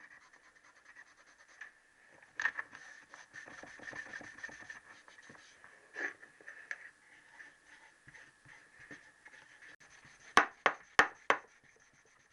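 Silicon carbide paper wrapped on a split pin rubbing inside a Triumph T120R connecting rod's new small-end bush, worked by hand, dressing the bush to fit the gudgeon pin: a run of quick, fine scratching strokes. About ten seconds in come three sharp taps.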